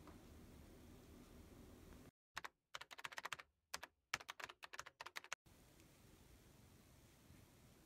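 Rapid runs of light, sharp clicks in three bursts, about two seconds in to about five and a half seconds in, with dead silence between them.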